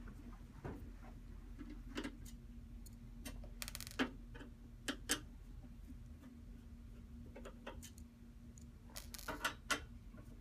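A screwdriver working the cover screws out of a Cisco 4451-X router's steel top cover: scattered sharp ticks and clicks, with two brief scratchy rasps, one about a third of the way in and one near the end, over a faint steady hum.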